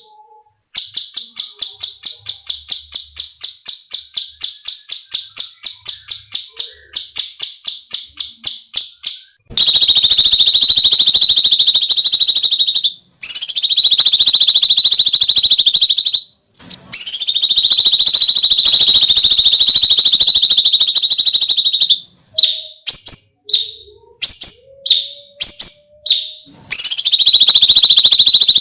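Cucak cungkok calling. It opens with a fast run of repeated sharp high notes, about four or five a second, then gives long harsh screeching shrieks in several stretches broken by short pauses, with a few quick falling notes between the last two.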